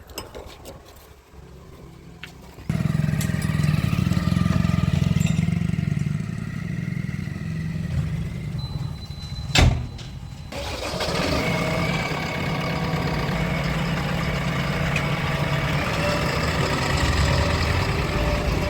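Heavy diesel machinery engine running steadily, coming in suddenly about three seconds in after a quieter start, with a sharp click near the middle.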